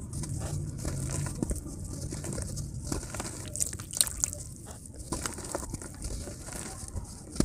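Hands crumbling and squeezing chunks of dry mud into shallow muddy water in a plastic tub: irregular crumbly crackles, with drips and small splashes as the pieces fall in.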